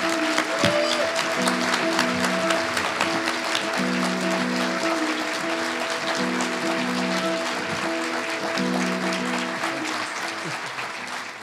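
Audience applauding over music with a repeating pattern of held chords; both fade out near the end.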